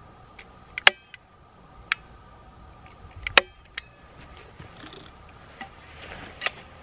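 Hard metal garden tools knocking together: a few sharp clinks, two of them ringing briefly, over a faint steady hum.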